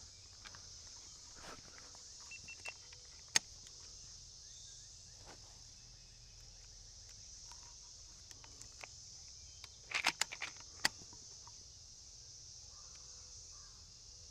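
Steady high-pitched buzz of insects in the woods, with a few faint sharp clicks and rustles, a short cluster of them about ten seconds in.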